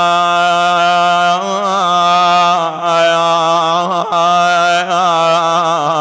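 A man chanting a Shia mourning lament (nai) in a loud, single voice. He holds one long note, then from about a second and a half in moves into a wavering, ornamented melody that slides up and down.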